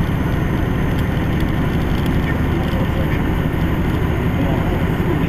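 Steady drone of a semi truck's diesel engine and road noise, heard inside the cab while cruising at highway speed.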